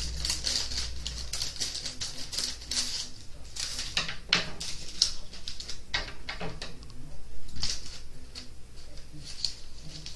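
Scissors snipping through parchment paper while the sheets crinkle as they are handled: an uneven run of crisp snips and rustles.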